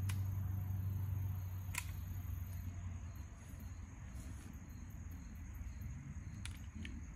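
A single sharp crack from a Kel-Tec P17 .22 LR pistol about two seconds in, over a low steady hum that fades out midway. Two faint clicks near the end come as the pistol, stopped by a failure to feed, is handled.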